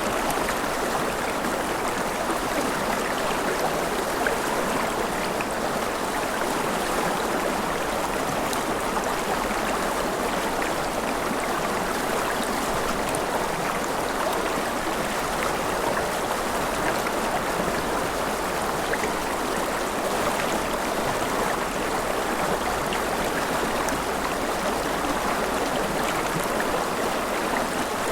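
River water flowing over a shallow bed: a steady rushing with some gurgling.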